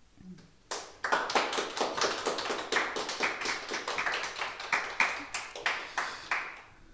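Small audience applauding, with separate claps audible; it starts about a second in and dies away near the end.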